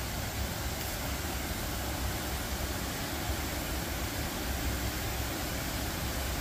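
Dog Slaughter Falls, a creek waterfall, rushing with a steady, even roar of falling water.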